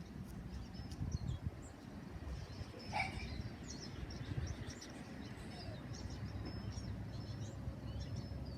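Small birds chirping in short, scattered calls over a steady low rumble of background noise.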